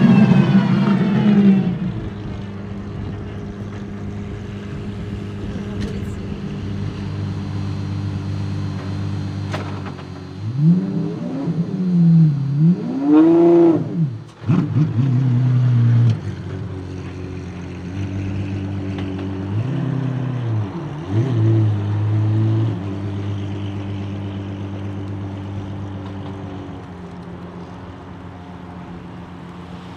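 Apollo Intensa Emozione's V12 engine idling. Its revs fall away at the start, it gets two sharp throttle blips a little under halfway through (the second higher, cut off suddenly), and two smaller blips a few seconds later. It then settles back to a steady idle that grows fainter toward the end.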